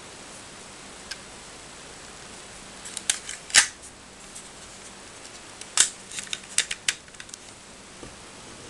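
Sharp plastic clicks and clacks from a toy gun's moving parts being worked by hand: a few about three seconds in, the loudest just after, then a quick run of about six clicks a couple of seconds later.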